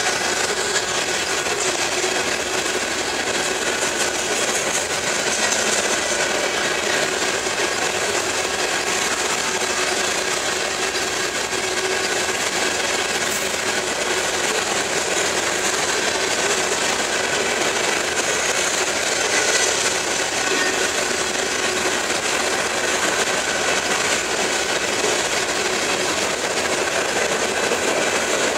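Loaded coal cars of a freight train rolling past: a steady, unbroken noise of steel wheels running on the rails and the cars rattling.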